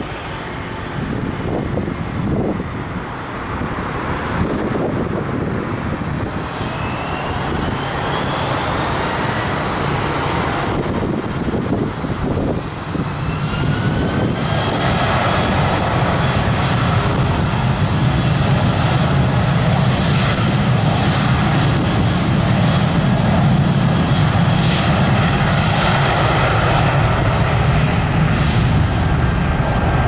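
Airbus A320's jet engines spooling up with a rising whine, then running loud and steady with a deep rumble from about halfway on. Wind buffets the microphone in the first seconds.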